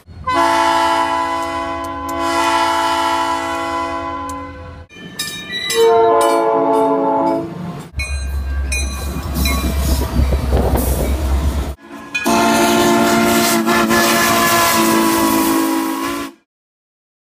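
Diesel locomotive air horns sounding in three long chord blasts, the second sliding down in pitch, with a locomotive rumbling past between them. The sound changes abruptly between them and cuts off near the end.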